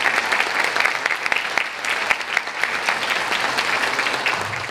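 Audience of a few dozen people clapping in a lecture hall, a dense patter of handclaps that fades out near the end.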